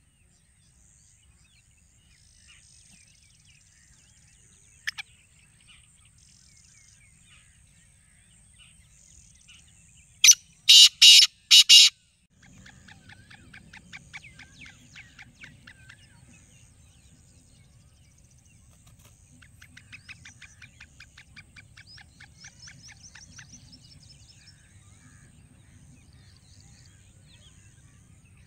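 Black francolin (kala teetar) giving its loud, harsh call about ten seconds in: four rasping notes within a second and a half. Faint rapid chirping follows in two stretches.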